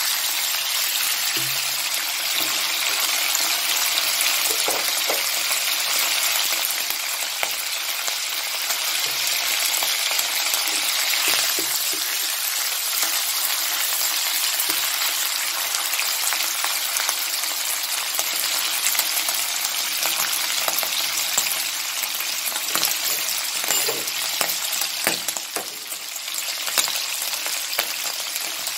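Pork belly pieces sizzling steadily in hot oil in a wok, with occasional clicks and scrapes of a spatula turning them.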